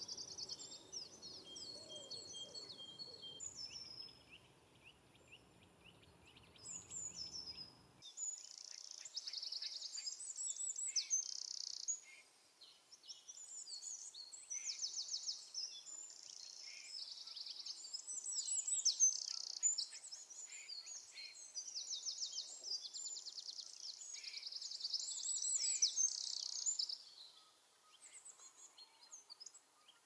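Eurasian wrens singing: repeated bursts of rapid, high, trilling song a few seconds long, one wren answering another from a neighbouring territory. The first few seconds hold only fainter high chirps of small birds.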